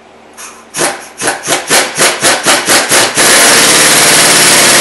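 Impact wrench running down the top nut on a strut shaft: a quick series of short bursts, about five a second, then a continuous loud hammering rattle from about three seconds in as the nut tightens.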